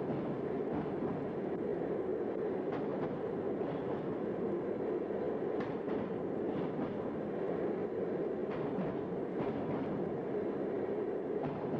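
Steady rumble of a passenger train running through a tunnel, with now and then a faint click or knock from the wheels and carriages.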